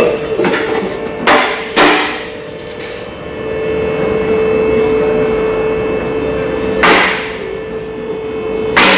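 Two-post car lift's electric hydraulic pump motor running with a steady hum while it raises a car. Five sharp knocks come over it: one at the start, two more in the first two seconds, one about two seconds before the end and one at the end.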